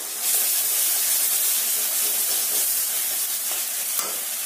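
Spice masala paste sizzling in hot oil in a steel kadai, a steady hiss that grows louder about a quarter second in; the masala has been fried until the oil separates. A light knock of the spatula near the end.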